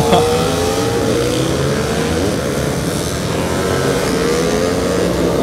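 Racing motorcycle engines running hard at high revs, several engine notes overlapping. Their pitch falls in the first second and rises again near the end as the bikes come off and back onto the throttle through the corners.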